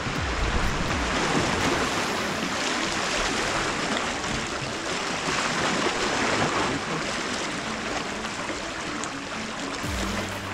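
Rushing water: a steady, surging hiss of water with no break.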